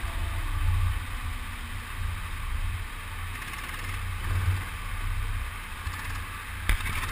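Go-kart rolling slowly into the pits, heard from onboard as an uneven, muffled low rumble with a light knock near the end.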